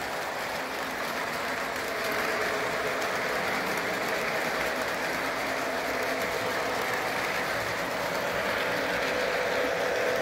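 Model electric train running on the track past the layout: a steady rolling rattle of wheels on rail with a faint steady motor hum, a little louder from about two seconds in.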